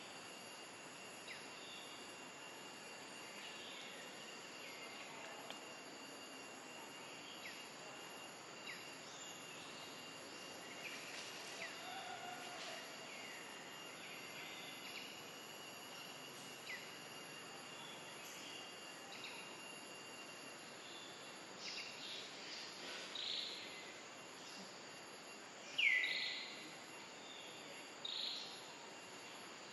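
Outdoor ambience of a steady high insect drone, with short, falling high-pitched chirping calls scattered through it. The calls come louder and closer together in the last several seconds.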